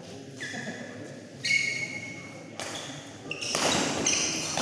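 Badminton shoes squeaking sharply on an indoor court floor several times during a rally, mixed with sharp hits, busiest near the end.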